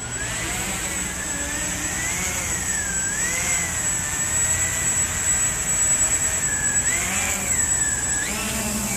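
Walkera QR X350 Pro quadcopter's electric motors and propellers whining, the pitch swaying up and down as the throttle changes, with a sharp rise near the end.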